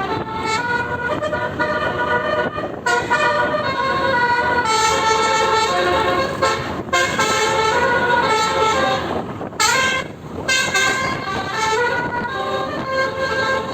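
Tour bus's basuri telolet air horn playing a continuous tune, one horn note after another in quick steps, over the noise of the bus on the road. A little over two-thirds of the way through there is a short rising swoop and a brief break before the tune carries on.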